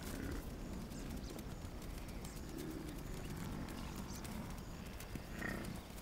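A large Cape buffalo herd on the move: many hooves knocking and thudding on dry ground over a low, steady rumble. A short call comes about five and a half seconds in.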